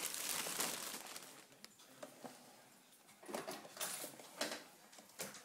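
Plastic baby push-walker toy clattering and rattling as it is gripped and pushed over a tile floor: a run of irregular clicks and scrapes, busiest at the start and again past the middle.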